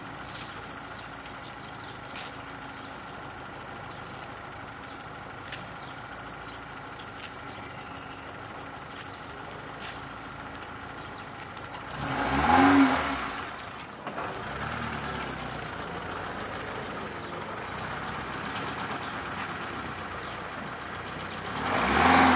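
Car engine idling steadily, then revved hard about twelve seconds in, its pitch climbing and dropping back before settling into a louder steady run, and revved again near the end. The heavy, uneven revving is that of a novice driver.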